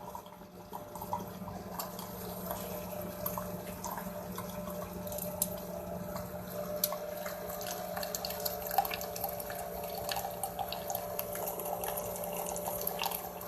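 CHULUX single-cup pod coffee maker brewing: a steady hum from its pump with coffee running and dripping into the cup, and many small pops and spatters.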